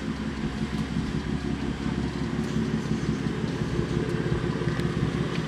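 BMW F80 M3's S55 twin-turbo inline-six idling steadily and loudly through an equal-length valved exhaust with catless downpipes, a fast, even pulsing note.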